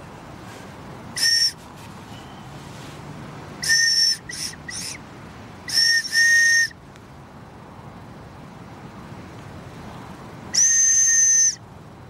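A dented metal ARP (Air Raid Precautions) whistle being blown. It gives a series of shrill blasts: a short one, a few quick toots, a double blast, then one longer blast of about a second near the end.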